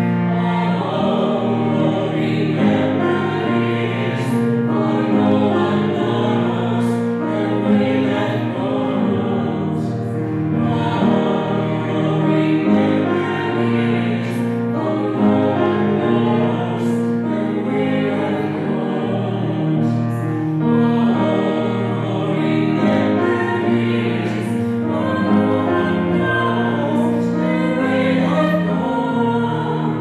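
Vocal ensemble singing in several-part harmony, holding long chords.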